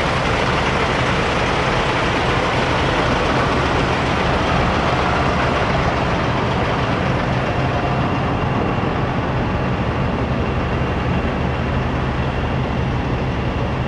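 Steady drone of idling semi-truck diesel engines across a truck stop parking lot, with a constant low hum that holds throughout.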